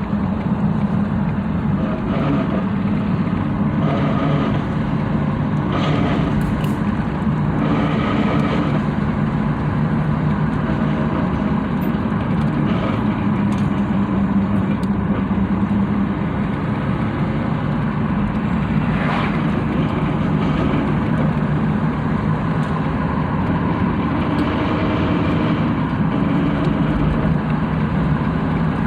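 1999 Dodge Durango 4x4 running: a steady drone with pitch bands that shift slowly, with an extra, higher band in the first third. The truck makes an unexplained noise from the front end when the gas is let off.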